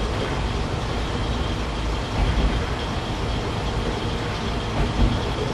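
Japanese National Railways KiHa 20 diesel railcar running along the line, heard from inside the car: a steady low rumble of the diesel engine and wheels on the track.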